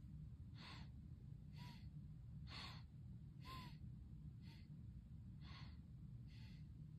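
Faint, quick breaths from a person close to the microphone, seven short ones about a second apart, over a low steady hum.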